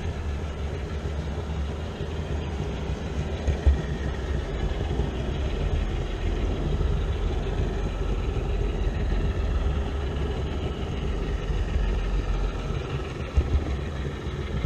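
HO-scale model trains running: a steady rolling rumble of metal wheels on rails with a motor drone, with a few sharper clicks about four seconds in and near the end.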